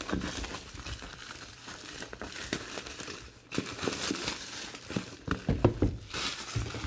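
Plastic or cellophane packaging crinkling and tearing as a sealed trading-card box is unwrapped and opened, with irregular crackles and a short pause partway through.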